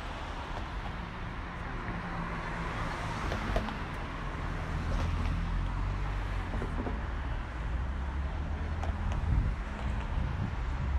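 Road traffic on a busy city street: cars running past in a steady rumble, a little louder from about the middle.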